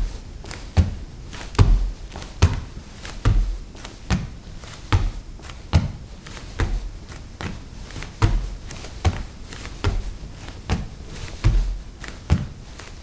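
Bare feet walking on a wooden floor: steady, soft, low thuds a little more than once a second, with lighter taps between the steps.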